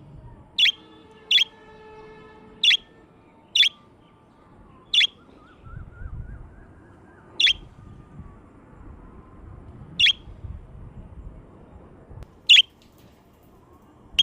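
Budgerigars giving short, sharp single chirps, about nine of them, spaced irregularly a second or two apart.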